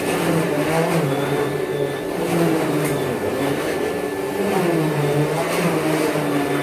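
Vacuum cleaner running as its head is pushed back and forth over a bed mattress. The steady motor hum dips and rises in pitch every half second or so with the strokes.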